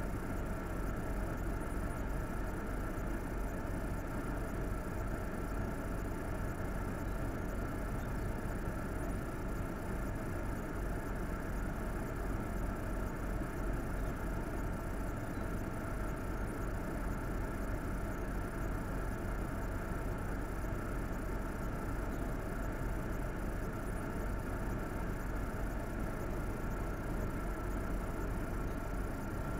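Steady vehicle engine and running noise, an even low rumble with no change in speed or load.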